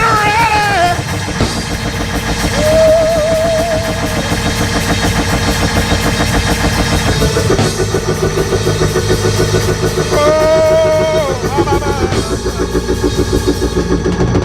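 Church band playing fast, loud gospel music, with a driving drum kit and cymbals over bass and guitar. Two long, wavering held notes ride over the beat, a few seconds in and again near the end.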